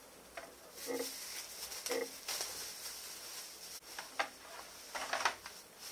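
Crinkling plastic bag as bread buns are pulled out of it, with light clicks and taps of a kitchen knife and crockery on the counter.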